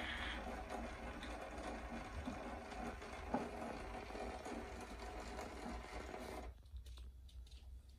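The spring motor and cylinder mandrel of a 1906 Edison Standard phonograph running, with the reproducer riding the wax cylinder: a steady mechanical running sound with surface hiss and a single click about three seconds in. It cuts off suddenly about six and a half seconds in as the machine is stopped.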